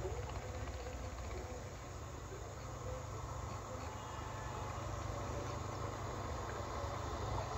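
Insects, crickets among them, chirping steadily over a low, steady rumble.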